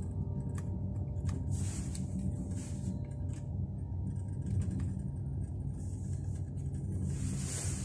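Steady low rumble heard inside an aerial gondola cabin as it rides along its cable, with a few faint clicks and two passing airy hisses.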